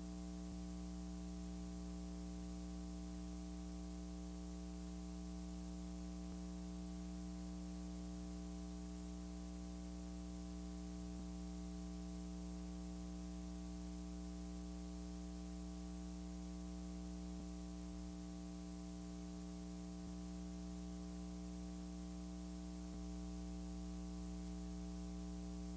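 Steady electrical mains hum with a faint hiss above it, and no other sound.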